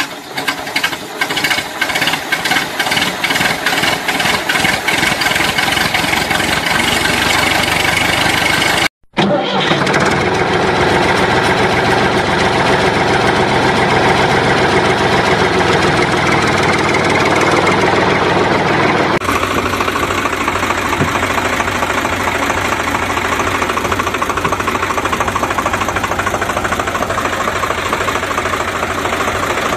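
Tractor engine sound effect. Evenly spaced chugging pulses quicken like an engine starting, then a brief cut about nine seconds in, then steady running whose tone changes about two-thirds of the way through.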